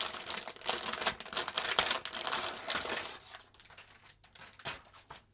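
Plastic anti-static shielding bag crinkling and rustling as a motherboard is pulled out of it. The crinkling is busiest for the first three seconds, then thins out, with a couple of light knocks as the board is set down on the desk.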